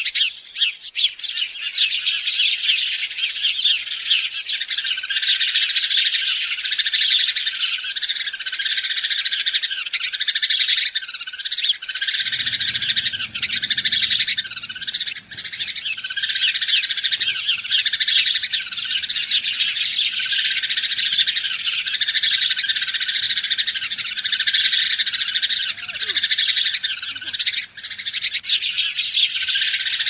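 A dense, continuous chorus of chirping birds, with one call repeating about once a second over it.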